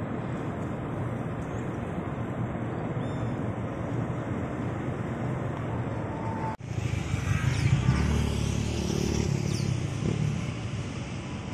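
Heavy diesel truck engines running steadily. After a sudden break about six and a half seconds in, a Scania V8 tractor hauling double trailers full of coal is heard. Its engine is louder and deeper, peaking a second or so later and easing off toward the end.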